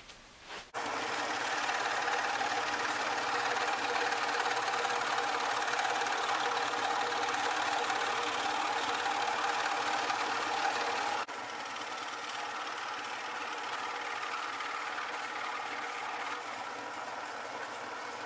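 Electric scroll saw running, its reciprocating blade cutting a pattern in a small piece of wood, a steady mechanical buzz with a hum. It starts about a second in and becomes abruptly quieter about eleven seconds in.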